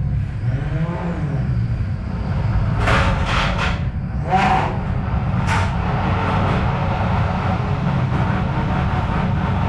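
Small electric motors of 3D-printed remote-control combat robots running as they drive, with a whine that rises and falls about a second in. A few sharp clattering knocks come about three to five and a half seconds in.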